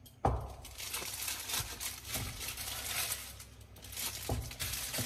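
A hand packing raw pork mixed with cooked rice and salt into a clear plastic jar for fermenting into sour pork: irregular wet rustling and squishing, with small clicks and knocks against the plastic jar, a sharper knock about a quarter second in.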